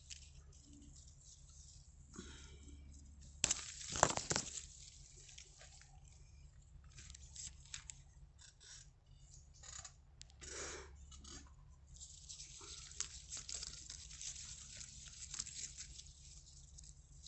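Apple-tree leaves and twigs rustling and snapping as apples are pulled off by hand. The loudest rustle-and-snap comes about three and a half seconds in, and there is a longer spell of leaf rustling near the end. Short knocks and rustles come in between, as the picked apples go into a woven wicker bicycle basket.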